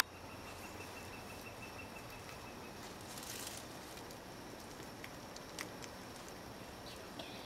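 Quiet woodland ambience with a bird's high, fast, even trill that stops about two and a half seconds in, then a brief hiss and a few faint scattered clicks.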